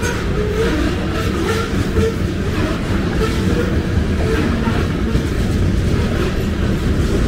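Covered hopper cars of a long freight train rolling past: a steady rumble of steel wheels on rail, with occasional clicks.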